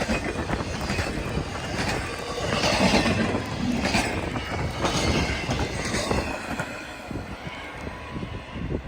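Railroad cars rolling past with steady wheel noise and brief high-pitched wheel squeals around the middle, fading away over the last couple of seconds.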